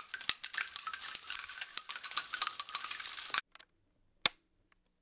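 A bright metallic jingling and clinking, like small coins or bells shaken, lasting about three and a half seconds and cutting off suddenly, followed by one sharp click about a second later.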